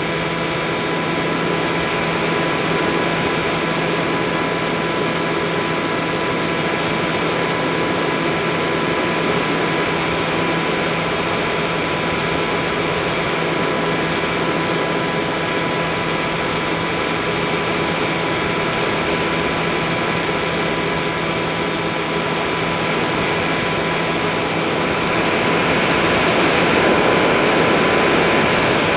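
Electric motor and pusher propeller of an Easy Star RC plane running steadily in flight, heard from the plane's onboard camera as a steady whine over rushing air. The sound swells a little about three seconds before the end.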